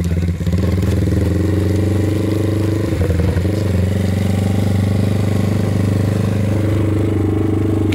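Honda Grom's single-cylinder four-stroke engine running at steady low revs while the bike rides slowly, with no rise or fall in pitch.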